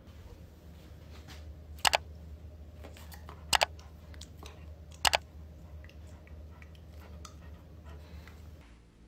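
A Rottweiler snapping its jaws at a hand held in its face: three sharp double clacks about a second and a half apart, over a steady low hum.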